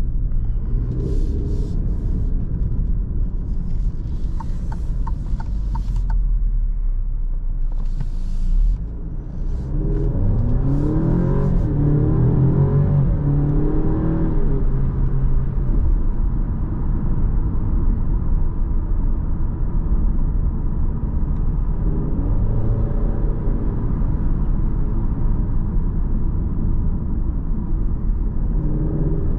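Alfa Romeo Giulia Veloce's 2.0-litre turbocharged four-cylinder heard from inside the cabin, with a steady low rumble. About ten seconds in it accelerates, the revs rising and dropping back through a couple of quick upshifts, then it settles into steady cruising with smaller rises in pitch near the end.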